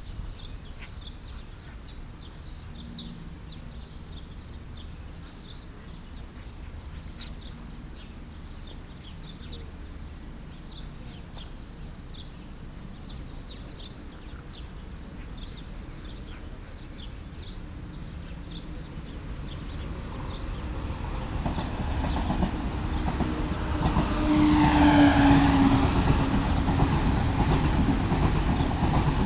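Birds chirping faintly over low background noise. From about twenty seconds in, a train approaches and passes. It builds steadily and is loudest around twenty-five seconds in, with a short steady hum at its peak.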